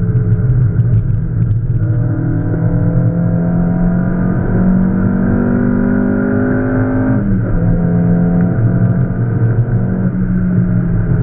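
Peugeot 306's 1.8 XU7JP4 four-cylinder engine on Jenvey individual throttle bodies, heard from inside the cabin under acceleration on track. The revs climb steadily for several seconds, then fall sharply at a gear change about seven seconds in, and the engine pulls on at steadier revs.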